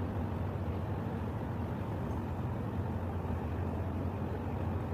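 Steady low rumble of ship and harbour machinery with a constant low hum, over open-air harbour noise; no distinct events.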